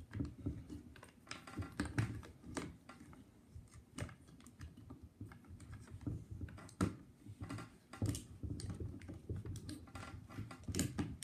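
Irregular small clicks and taps of hands working on a 12 V sealed lead-acid battery: a wire connector being pushed onto a terminal and a plastic connector bracket with its wires being fitted over the top.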